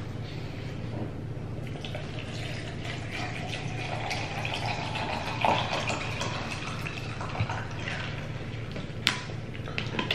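A person drinking water from a plastic bottle, with gulps and liquid sounds. Small clicks and crackles of the plastic follow, the sharpest about nine seconds in as the cap is screwed back on, over a steady low hum.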